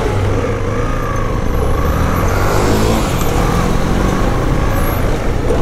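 Motor vehicle engine and road noise: a steady, loud rumble with faint wavering engine tones.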